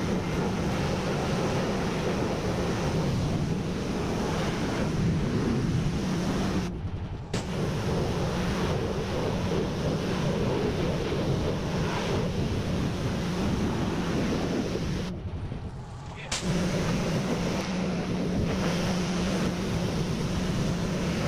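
Gas-engine pressure washer, a Stihl RB 400, running steadily while its wand sprays a hissing jet of water against house siding. The spray breaks off twice for a moment, once about a third of the way in and again, for about a second, around three-quarters of the way through.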